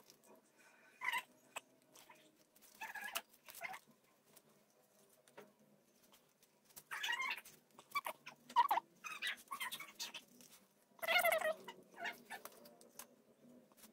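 Faint rustling and small clicks of a sandal and elastic strap being handled, with several short, high pitched calls in the background, the loudest near the end.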